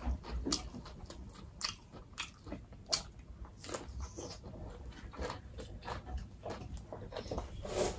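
Close-miked biting and chewing of a Vietnamese fresh spring roll (rice paper, shrimp, pork and raw greens), heard as irregular short clicks and crunches with no words.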